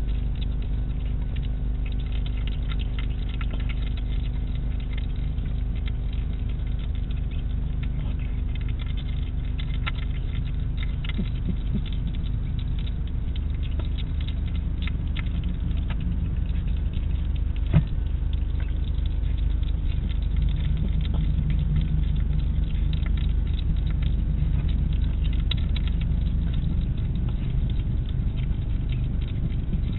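A hedgehog eating from a food dish close to the microphone: irregular small clicks and crunches of chewing and snout against the dish, with one sharper click a little past halfway. Under it runs a steady low electrical hum.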